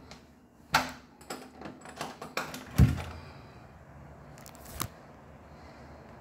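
Exterior door's deadbolt and knob rattling and clicking as the door is unlocked and turned open, with a heavy thud about three seconds in as it comes free. One more click follows about two seconds later.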